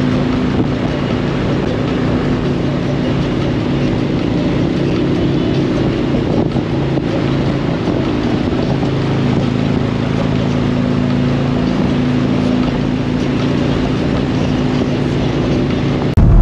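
Harley-Davidson V-twin motorcycle running steadily at cruising speed, with heavy wind noise on the microphone.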